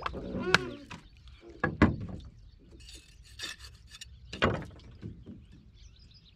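A fish being freed by hand from a gill net in a wooden boat: the net rustles and rubs, with a few sharp knocks on the boat's wooden planks, the loudest about two seconds in and another about four and a half seconds in.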